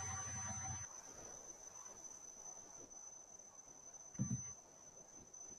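Faint room tone with a steady thin high-pitched whine, and one short, soft low sound about four seconds in.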